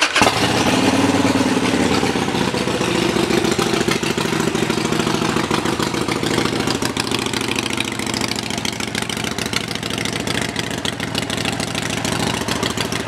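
Harley-Davidson Sportster Iron 883's air-cooled V-twin starting up at the beginning, then idling steadily through its aftermarket Vance & Hines exhaust.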